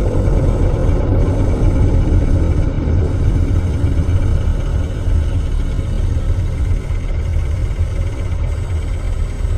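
Car engine running with a loud, steady low rumble.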